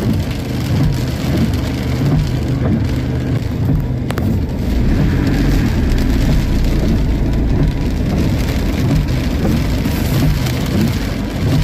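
Heavy rain falling steadily, over a low steady rumble, with one brief click about four seconds in.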